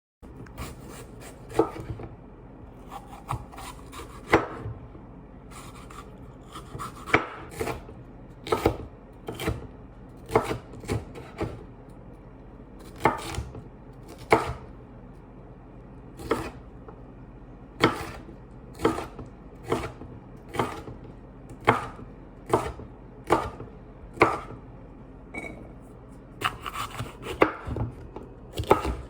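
Kitchen knife chopping vegetables on a cutting board: single sharp strokes, unevenly spaced at roughly one a second, with some quicker runs.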